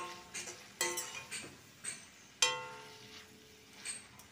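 A spatula stirring chillies in masala in a metal kadai, knocking against the pan several times so that the metal rings briefly after each knock; the loudest knock comes about two and a half seconds in.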